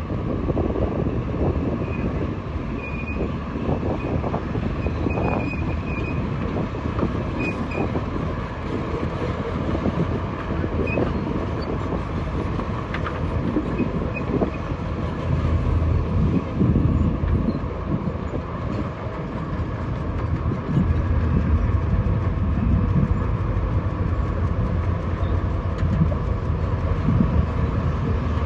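Heavy tracked construction machine on the move: a diesel engine running under load with steel crawler tracks clanking steadily and giving short high squeaks, growing heavier in the second half.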